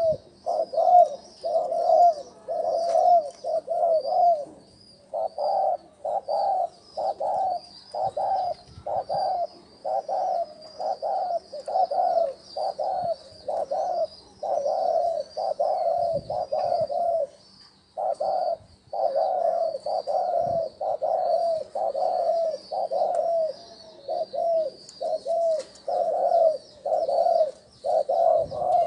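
Spotted dove cooing: a run of short, rapid coo notes, about two a second, broken by brief pauses. Fainter high twittering from small birds goes on underneath.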